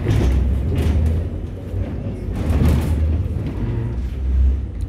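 Modernized V3A-93 tram running along the track, heard from inside the car: a steady low rumble that swells and fades, with a few brief hissing rail noises.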